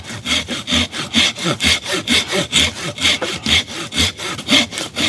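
Silky folding pruning saw cutting a notch into a dead hardwood stump, its blade rasping through the wood in quick, even strokes, about four a second.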